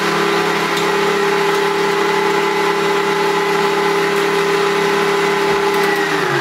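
Electric kitchen mixer motor working pastry dough, running with a steady whine, then winding down in falling pitch as it is switched off at the very end.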